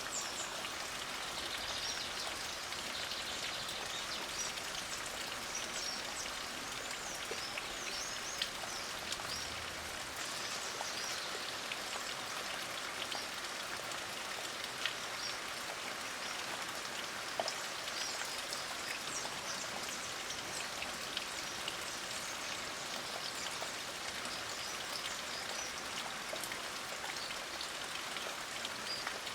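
Light rain falling steadily, with single drops ticking sharply here and there. Birds give short high chirps now and then, most in the first third and again a little past the middle.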